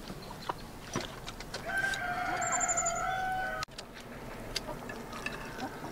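A rooster crowing once in one long held call of about two seconds, cut off suddenly.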